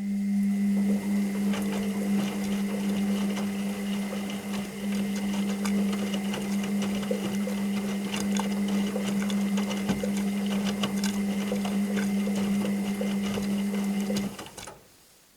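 Washing machine running with a steady, even-pitched hum and a scatter of small clicks and rattles. It cuts off suddenly about fourteen seconds in.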